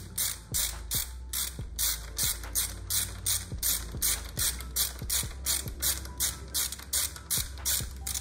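Hand ratchet with a hex bit worked back and forth in quick, even strokes to back out a small screw, each return stroke giving a short burst of pawl clicks, about three a second.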